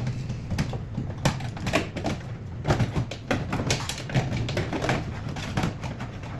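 A string of irregular clicks and knocks, a couple of times a second and varying in strength, over a steady low hum.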